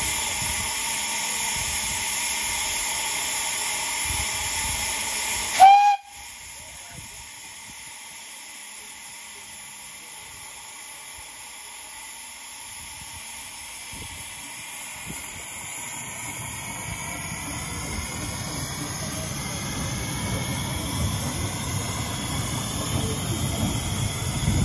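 Small steam locomotive hissing steam steadily and loudly. The hiss cuts off about six seconds in at one short, loud whistle blast. After that the engine gets under way, and the low rumble of the locomotive and its passenger train slowly grows louder as the train draws past.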